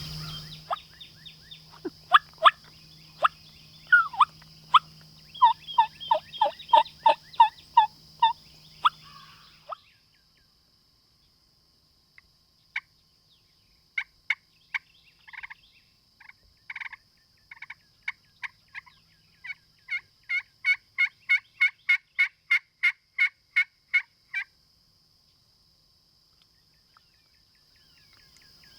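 Turkey calling: a string of short yelps lasting about ten seconds, then after a pause a longer, faster run of about twenty evenly spaced yelps that stops a few seconds before the end.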